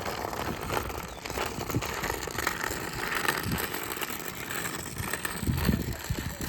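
A pulled cart's wheels rolling over rough ground, with a continuous rattle and clatter.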